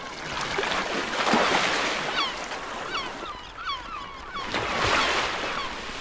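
Rushing, splashing seawater from humpback whales lunge-feeding at the surface, swelling up twice, with a string of short rising-and-falling cries from seabirds in between.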